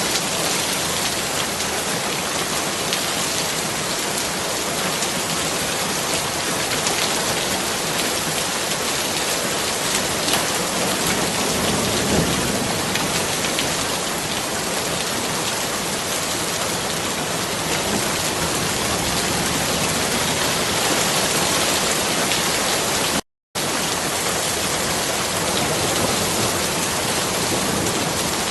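Steady rain falling, a dense even hiss of drops hitting surfaces. A low rumble swells briefly near the middle, and the sound drops out to silence for a split second about 23 seconds in.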